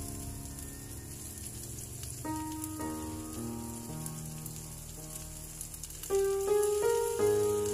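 Background music of slow, sustained notes that change every second or so and get louder near the end, over a steady sizzle of minced milkfish with onions and chili frying in a pan.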